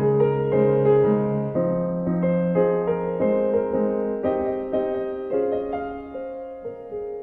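Background piano music, with notes and chords struck in turn, growing quieter over the last few seconds.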